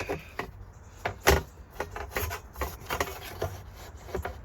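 Plastic speaker grille being pushed and worked against the rear door's plastic trim panel: rubbing and scraping with a scattered string of clicks and knocks, the loudest just over a second in.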